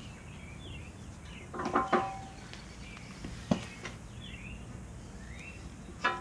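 A few metallic clanks from a steel punch and backhoe bucket pin: a ringing clank about two seconds in, a sharp tap about three and a half seconds in, and another clank near the end. Birds chirp several times in the background.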